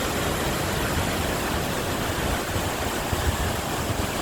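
A strong-flowing waterfall rushing in a steady, unbroken roar of water noise.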